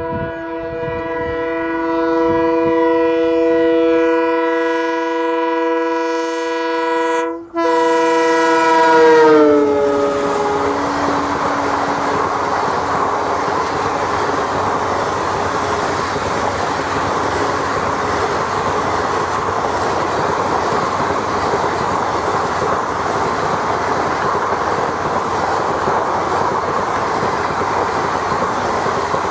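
WDP4D diesel locomotive sounding its air horn in one long blast as it approaches at speed, broken briefly about seven seconds in, with the horn's pitch dropping as the locomotive passes. Then the passenger coaches run past with a steady rush and clickety-clack of wheels over rail joints.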